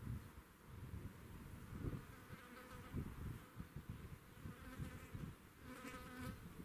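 A flying insect buzzing close to the microphone, faint a couple of seconds in and louder near the end, over low wind rumble on the microphone.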